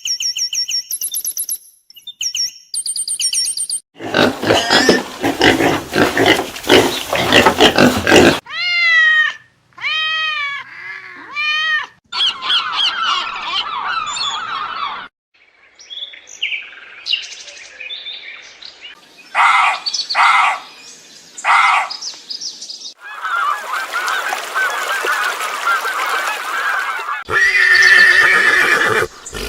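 A series of different animal calls, one clip after another, changing every few seconds. They include high, rapidly repeated calls at first, a run of rising-and-falling calls about nine seconds in, and a rough noisy stretch near the end.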